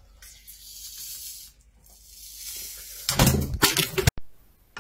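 Dogfish skin being peeled back from the flesh with pliers, a rasping, tearing hiss. About three seconds in comes a loud clatter of knocks as a hand strikes the tripod and the phone mount breaks, and the sound cuts off abruptly.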